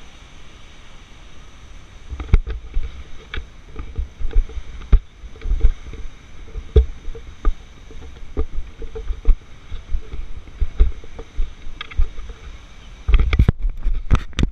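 Irregular dull thumps and knocks of footsteps on a wooden-planked suspension bridge, mixed with bumps of the body-worn camera jostling against clothing, over a steady rushing background. A cluster of louder rumbling knocks comes near the end as the camera is swung about.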